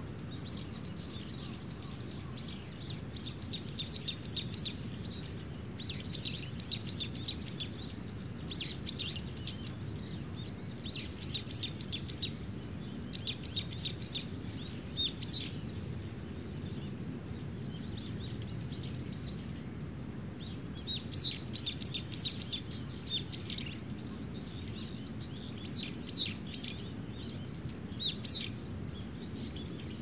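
Small songbirds singing, phrase after phrase of quick repeated high notes, over a steady low background rumble.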